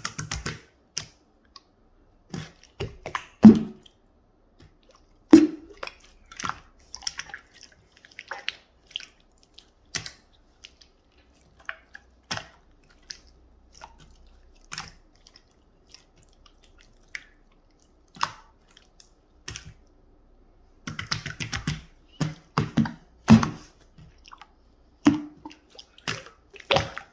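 Clear slime being squeezed and pressed by hand: scattered wet clicks and squelches, irregular, with a few louder pops and a denser run of them near the end.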